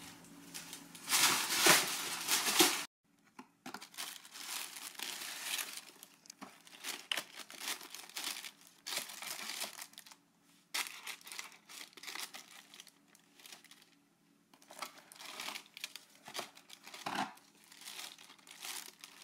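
Tissue paper wrapping crinkling and rustling in irregular bursts as sneakers are handled in their shoebox. It is loudest in the first three seconds and breaks off sharply a few times.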